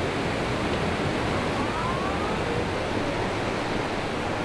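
Steady rushing of tsunami floodwater surging through a town and carrying debris, with a few faint rising wails in the middle.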